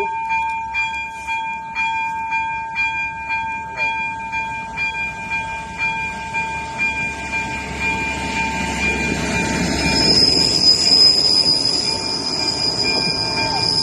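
ZV-02 electronic level-crossing bell ringing with even strokes about twice a second, while a train runs over the crossing. The train's rumble builds from about halfway and peaks, and a high wheel squeal sets in near the end.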